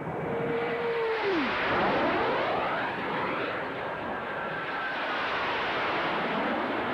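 Airplane making a low pass: its steady engine tone drops sharply in pitch about a second and a half in as it goes by, loudest just after, then fades to a steady engine drone.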